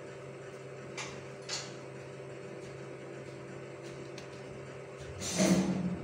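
Steady low hum, with two short crisp ticks about a second in as a small kitchen knife cuts into a raw potato held on a wooden skewer. A louder brief scrape comes near the end.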